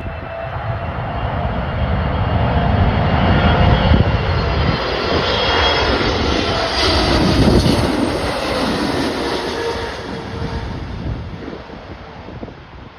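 Boeing 777-300ER's GE90 jet engines as the airliner passes, a loud rush with a sliding whine that builds to a peak and fades away over the last few seconds. Wind buffets the microphone throughout.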